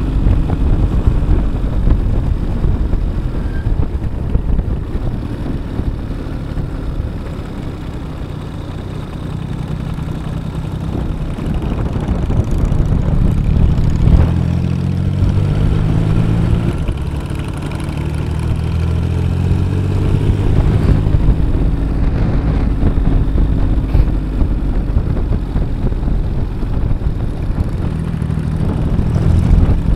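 Diesel-engined motorcycle running under way, heard from the rider's seat with wind rushing over the microphone. In the middle the engine pitch climbs and drops back suddenly a few times as it pulls.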